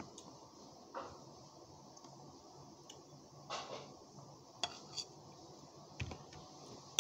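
Metal spoon clinking and scraping in a bowl of champorado while eating, a handful of separate short clinks a second or so apart.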